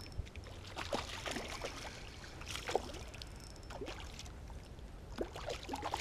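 Hooked trout splashing and thrashing at the water's surface as it is reeled in, several irregular splashes about a second apart.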